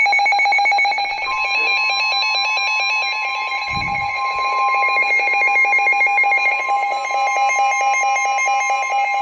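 Weather alert radio sounding its alarm: a fast, steady electronic beeping, joined about a second in by a single long steady tone near 1 kHz, the NOAA Weather Radio warning alarm tone that announces a severe thunderstorm warning.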